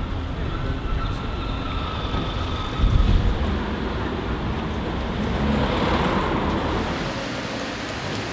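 Street traffic: vehicle engines running and tyres passing, with a low thump about three seconds in.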